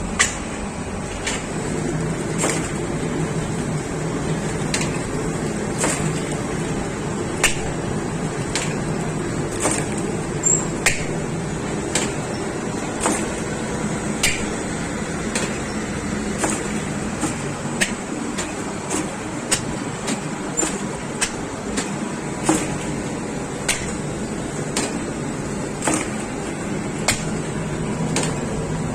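Bakery machinery running with a steady hum and a sharp click or knock about once a second, in a regular rhythm.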